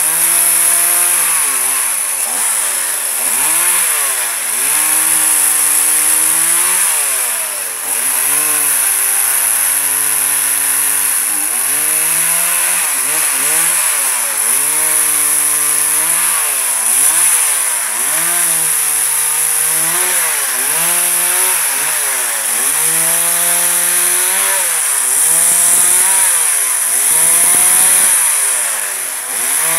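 Stihl MS 180 two-stroke chainsaw cutting up walnut branches. The engine runs at high revs, then drops toward idle and climbs back again and again between short cuts.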